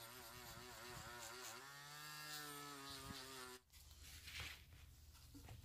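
Dremel rotary tool spinning a polishing wheel at high speed, buffing rubbing compound into the paint of a die-cast truck body: a faint buzzing whine whose pitch wavers and dips as the wheel is worked lightly against the body. It cuts off suddenly about three and a half seconds in.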